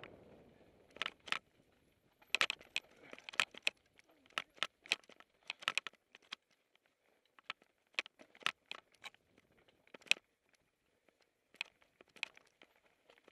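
A mountain bike rattling and clattering over a rough singletrack descent: irregular bunches of sharp clicks and jangles as the bike and the camera on it are jolted by the trail.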